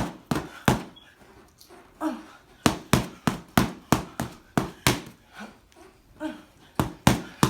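Punches landing on boxing pads as sharp smacks: a few early, then a quick run of about three a second, then a few more near the end. Short breathy grunts come between the strikes.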